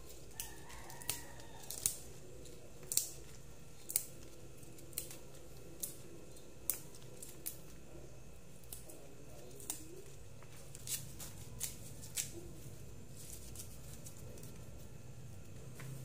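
Crisp stems of fresh leafy greens snapped by hand as the leaves are plucked, a series of sharp little snaps at irregular intervals, about one a second.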